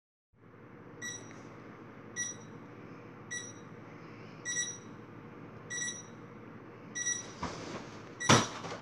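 Bedside alarm beeping: seven short, high beeps, evenly spaced a little over a second apart, over a steady low hum. Near the end there is rustling, then a loud thump.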